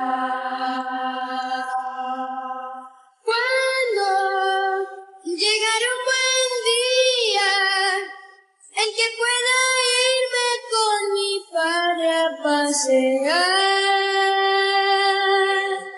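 Boys' pop voices singing unaccompanied, with no instruments: long held notes with vibrato in several phrases, breaking off briefly about three and eight seconds in.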